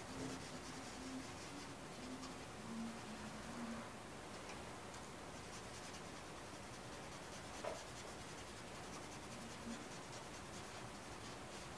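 Carbon pencil scratching lightly on drawing paper in quick, faint shading strokes, with one sharper tick about two-thirds of the way through.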